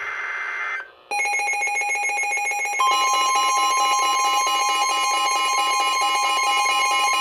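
Emergency Alert System broadcast alert. A buzzy digital header burst ends under a second in, then a harsh, steady electronic attention tone starts. It gets louder with a strong added tone about three seconds in.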